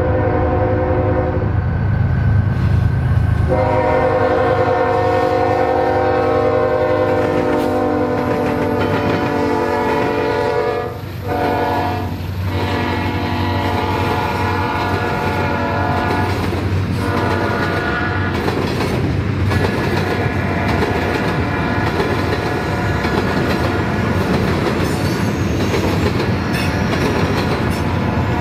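Diesel locomotive air horn sounding a multi-note chord in long blasts, with a brief break about eleven seconds in, while the freight train rolls past. After the horn fades, about two-thirds of the way through, the train's wheels rumble and click over the rail joints as tank cars pass.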